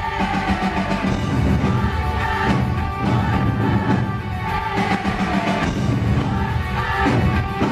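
Live rock band playing with a line of taiko drums, heard from the audience.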